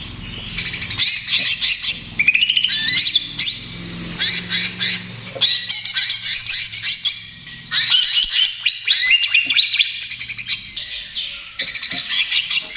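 Cucak ijo (green leafbird) singing in the rapid 'trotol' style: fast chattering notes, trills and rising whistles in long phrases broken by brief pauses.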